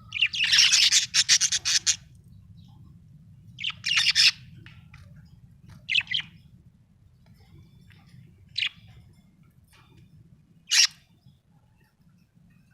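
Budgerigar chirping: a fast, loud run of chirps for about two seconds at the start, then single short chirps every two seconds or so.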